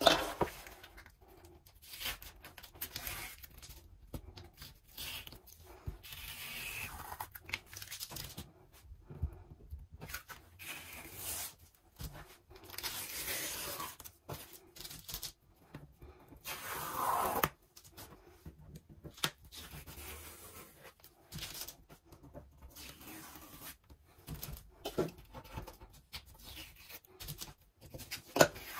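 Masking tape being peeled off a Cricut cutting mat and the edge of a faux leather sheet, in irregular tearing strips of varying length with short pauses between.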